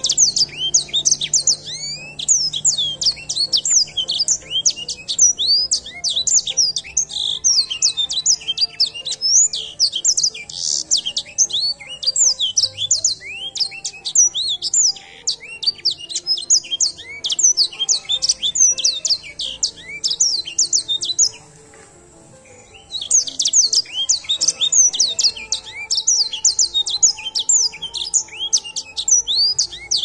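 Edel sanger finch singing a long, fast song of high chirps and trills. It breaks off for about two seconds a little past two-thirds of the way through, then starts again.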